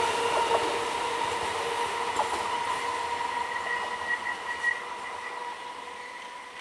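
EMU local train running away and fading out, its wheels on the rails giving a steady high-pitched ringing over the rumble, with a few faint clicks.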